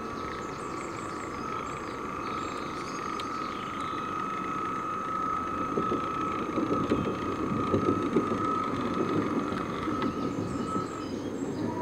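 Radio-controlled model lifeboat's electric drive motor whining steadily at one pitch, stopping shortly before the end. A rougher rushing noise grows louder from about halfway in, while the boat runs close by.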